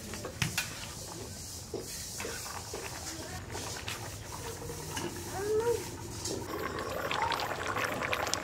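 Banana stem and fish head curry bubbling at a boil in a pot, with scattered faint clicks. The bubbling grows a little louder over the last couple of seconds, and a brief pitched sound comes about five and a half seconds in.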